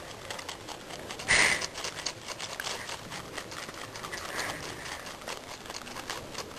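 A marmot chewing cabbage: a steady run of small crunching clicks, with one short, louder burst about a second and a half in.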